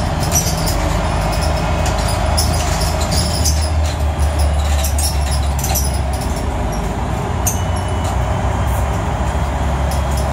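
Engine of a Dennis Trident double-decker bus running as the bus moves off, heard inside the passenger cabin as a steady low drone with light rattles from the body and fittings.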